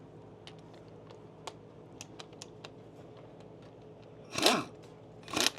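Pneumatic impact wrench on a mower blade nut, fired in two short bursts near the end, loosening the nut, after light metallic clicks of the socket and tools.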